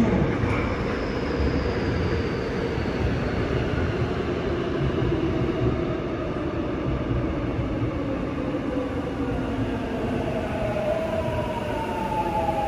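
Seoul Line 7 subway train rolling into the station and slowing, with a steady rumble of wheels on rails. The traction motors' whine falls slowly in pitch as the train brakes, most clearly near the end.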